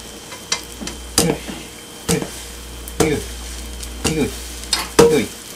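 Frying pan tapped on its handle to roll a half-set omelette toward the pan's edge: five knocks about a second apart, each followed by a short falling tone.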